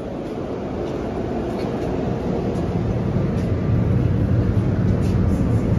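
Electric multiple unit commuter train's steady low hum and rumble, growing gradually louder.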